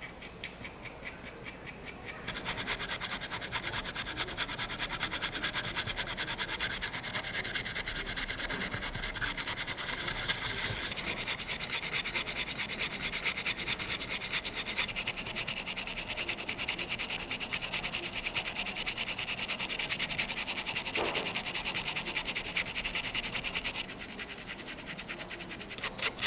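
Fast, steady, rhythmic rubbing or scrubbing, louder from about two seconds in and quieter again near the end.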